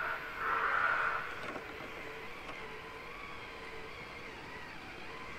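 VS4-10 RC rock crawler's electric motor and geared drivetrain whining as it drives, with a short rush of noise in the first second or so.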